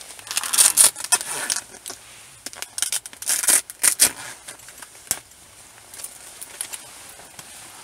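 Fabric rustling and crinkling in two bursts of movement, with a single sharp click about five seconds in.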